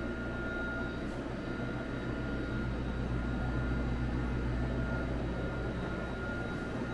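Steady low machine hum, as of an appliance or ventilation running, with a faint steady high whine above it.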